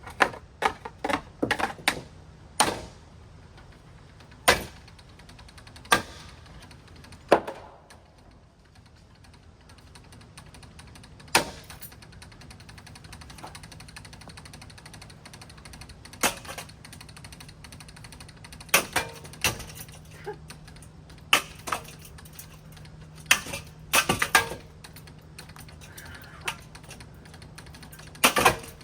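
Loud, sharp knocks and clanks at irregular intervals as a ceiling fan is battered, several in quick succession at the start and then one every few seconds. A faint low steady hum runs under the second half.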